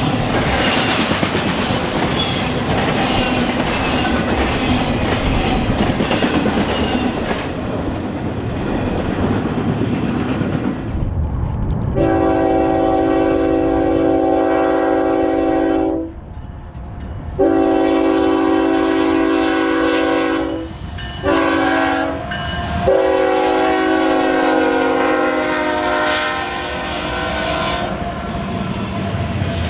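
A freight train rolling past, its wheels clicking over the rail joints, then a diesel locomotive's air horn sounding the grade-crossing signal: two long blasts, a short one and a final long blast.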